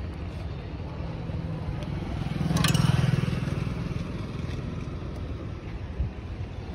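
Steady low hum of road traffic, swelling as a motor vehicle passes close, loudest about three seconds in, with a sharp click near the end.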